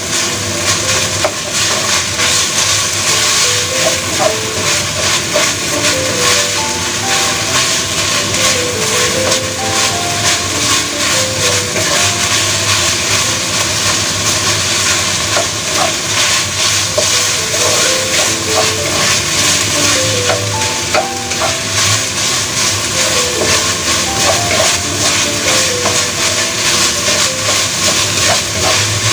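Minced meat sizzling steadily as it stir-fries in a wok, with the wooden spatula scraping and turning it. A faint melody of short stepping notes runs underneath.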